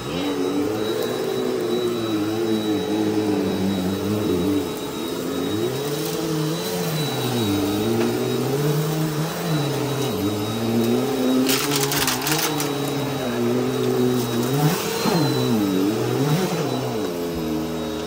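Bissell PowerForce Helix Turbo Rewind upright vacuum running over a shag rug, its motor pitch dipping and rising again and again as it is pushed back and forth. About twelve seconds in comes a brief cluster of clicks and crackles as grit is sucked up.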